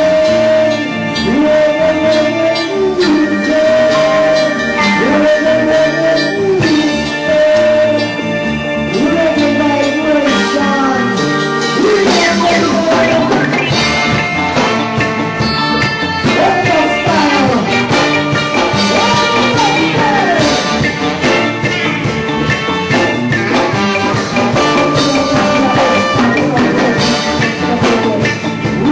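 Live reggae band playing a song, with a melody line over a steady beat.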